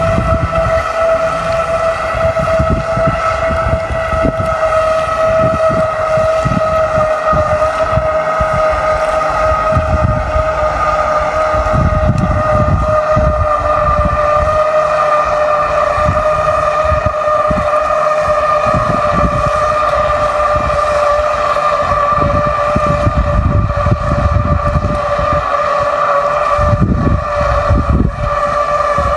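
Small remote-controlled boat's electric motor giving a steady high whine as it tows a fishing net out across the water, its pitch sinking slightly as it goes. Wind gusts rumble on the microphone underneath.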